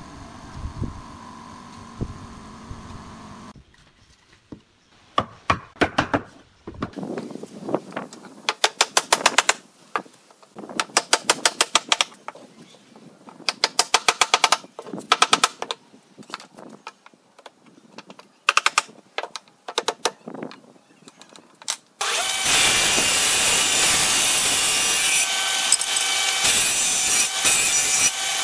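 Power driver running in short bursts of rapid clicking as screws are driven, fastening pine legs to a table frame. About twenty seconds in, a stationary woodworking machine starts abruptly and cuts a pine board with a loud, steady noise.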